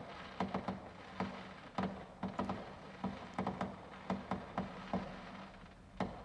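A rapid, irregular series of sharp pops, two to four a second, over a steady low hum, with a short lull near the end.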